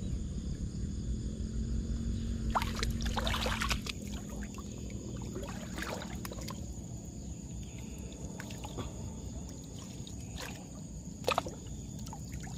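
Shallow marsh water sloshing and splashing as a person wades and handles a submerged wire-mesh fish trap by hand, with a few louder splashes about three seconds in and a sharp one near the end.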